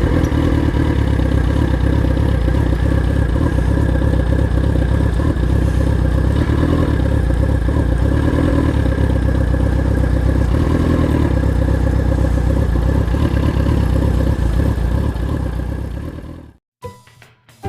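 Motorcycle riding along with its engine running and heavy wind rumble on the microphone, steady throughout. It cuts off suddenly near the end and music begins.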